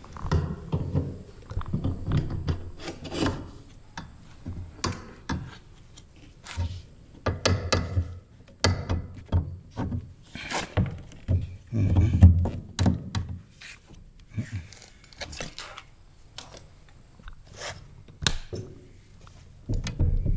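Copper pipe and fittings being handled and fitted together: irregular clicks and knocks of metal on metal and on wood, with dull low thumps, heaviest about two-thirds of the way in.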